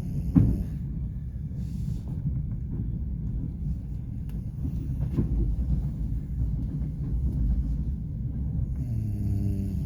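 Low, steady rumble of a passenger train running on the rails, with a sharp knock about half a second in and a weaker one about five seconds in.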